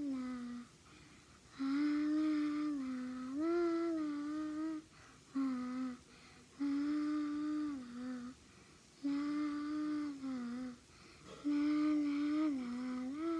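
A young girl singing a slow, wordless tune in long held notes, in short phrases with pauses between them; most phrases end with a small drop in pitch.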